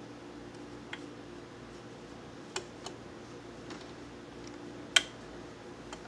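A few light, sharp mechanical clicks as the Yamaha YP-B4 turntable's tonearm is handled, the loudest about five seconds in, over a faint steady hum.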